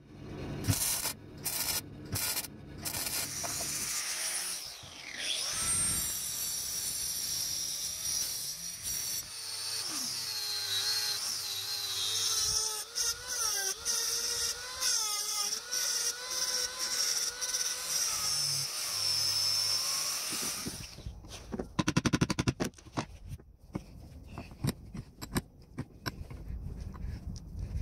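A hand-held rotary die grinder grinding down a weld on a metal part, its high whine wavering in pitch as the bit bites and eases off. Near the end the grinding stops and a run of sharp metallic clicks and knocks follows.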